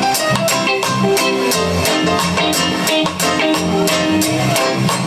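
Live band music: guitar over bass with a steady, evenly spaced beat.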